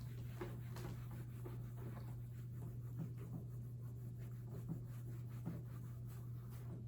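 Faint handwriting: scattered short scratches and taps of writing strokes, over a steady low hum.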